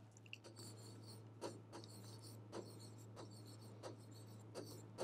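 Faint scratching strokes of a pen writing by hand on an interactive display screen, short irregular strokes about every half second over a steady low hum.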